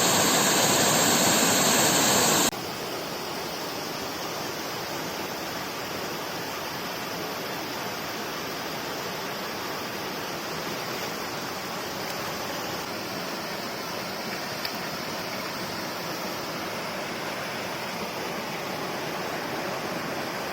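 Steady rushing of a rain-fed waterfall. About two and a half seconds in, the sound drops suddenly to a quieter, even rush.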